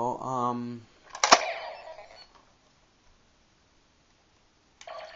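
A single sharp clack with a short ringing tail that fades within about a second, then nothing; a few faint clicks near the end.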